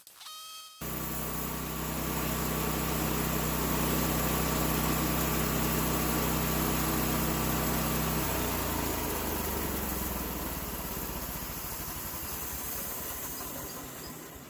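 Small gasoline engine of a homemade bandsaw sawmill running steadily; about eight seconds in its even note gives way to a rougher, noisier sound, and it fades out near the end.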